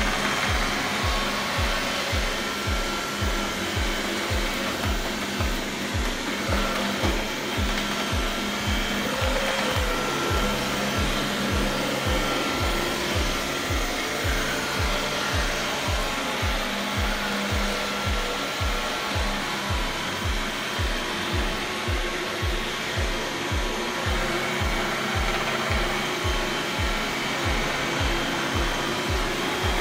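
Roborock S50 robot vacuum cleaning, its suction fan running steadily, under background music with a low beat about twice a second.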